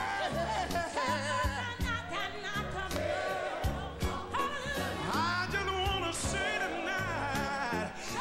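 Live gospel singing: a wordless lead vocal with wide vibrato over a band with bass and a steady drum beat.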